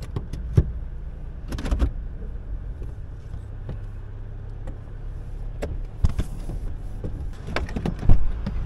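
Kubota LX2610 compact tractor's diesel engine running steadily, with scattered knocks and clatters over it.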